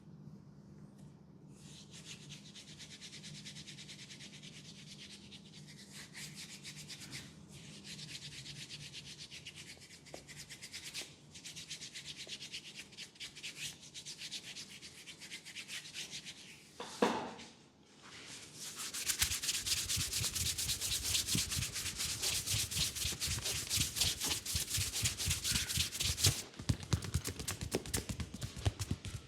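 Hands rubbing during a massage, a steady hiss of fine rapid strokes with short pauses. About two-thirds of the way in, after a brief louder sound, the rubbing becomes louder and more vigorous.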